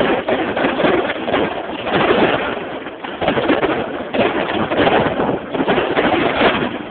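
Aerial fireworks bursting overhead in a dense, rapid crackle of popping stars, swelling and easing in waves, recorded on a mobile phone.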